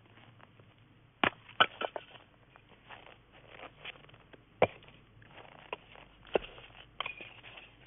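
Scattered sharp clicks and crackles at irregular intervals over a faint hiss, the loudest a few single pops.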